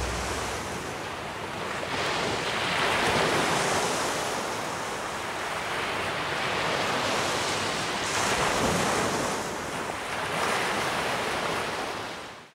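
Sea surf washing onto a shore, a hiss that swells and ebbs every few seconds, then fades out near the end.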